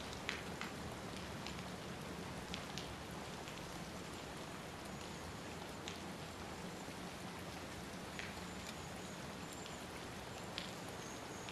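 Steady rain falling, with a few sharper drop ticks scattered through it.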